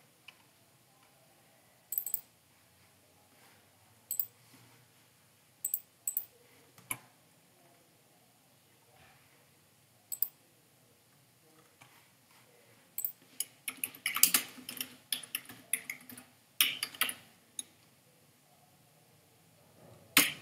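Computer keyboard typing. A few single key presses in the first ten seconds, a quick run of typing from about 13 to 17 seconds, and one more keystroke near the end.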